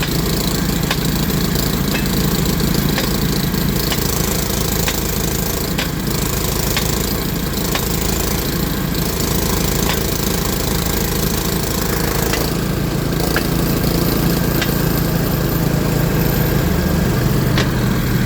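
An engine running steadily, with a sharp tick roughly once a second.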